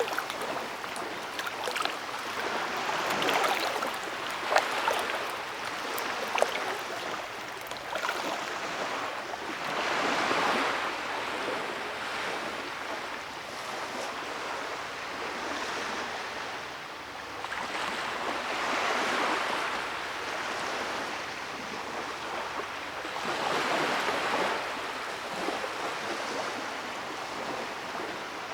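Creek water running over rocks: a steady rush that swells and eases every several seconds, with a few small splashes in the first seven seconds.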